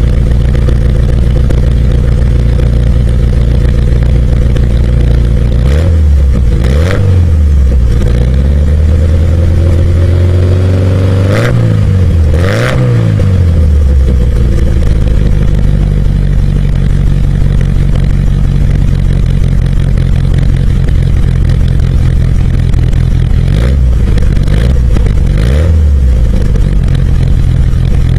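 Fiat Spider's four-cylinder engine heard at the tailpipe through an aftermarket exhaust with a large polished tip: idling, blipped twice about six seconds in, held at raised revs with two sharper blips midway, then settling back to idle and blipped twice more near the end.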